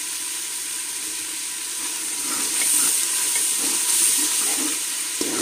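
Onion, tomato and ginger-garlic masala sizzling in hot oil in a pan as it is stirred with a slotted metal spatula, at the bhuna stage of frying the masala; the sizzle grows louder about halfway through.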